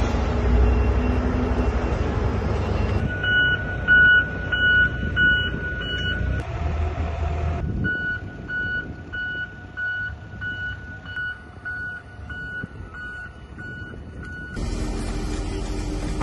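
Aircraft tow tractor's warning beeper: a long run of short, high beeps, about two a second, starting about three seconds in and stopping shortly before the end. A steady low rumble comes before the beeps, and a steady hum takes over near the end.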